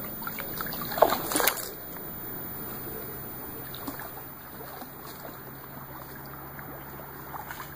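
Water splashing sharply twice, about a second in, while a carp is played on a bent rod. A steady low wash of water follows.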